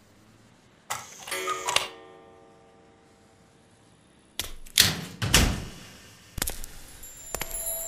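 Sound effects over the intro. About a second in there is a sudden hit with a brief shimmering ring. A few sharp knocks and clicks follow in the middle. Near the end the song's opening music begins with steady ringing notes.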